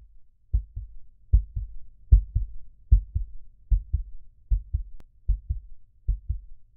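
Heartbeat sound effect: paired low lub-dub thumps repeating evenly about every 0.8 seconds, with a single brief click about five seconds in.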